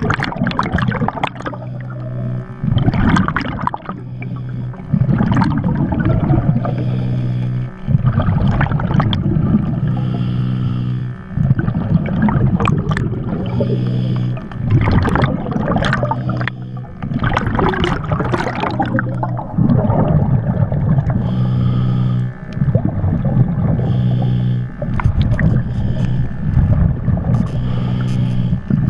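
A diver breathing underwater through a regulator: loud rushes of breath and exhaled bubbles every two to three seconds, over a steady low hum.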